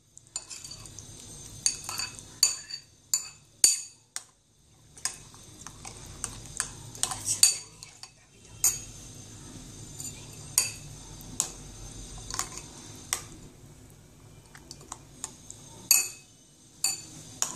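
A metal spoon stirring yogurt raita in a cut-glass bowl, clinking against the glass at irregular intervals, roughly once a second, each strike leaving a short ring.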